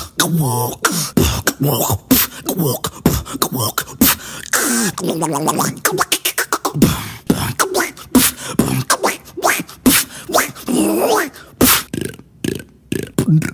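Beatboxer making vocal sound effects with the mouth: rapid clicks and percussive hits mixed with sliding, pitched vocal tones that rise and fall, with a short pause near the end.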